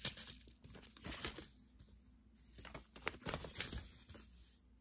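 Seed packets handled and shuffled by hand, crinkling and rustling in two short spells with a brief lull between.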